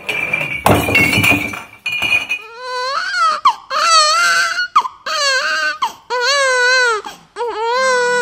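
Glass bottles clinking for about two seconds, then a newborn baby crying in a series of about five wailing cries, each under a second long.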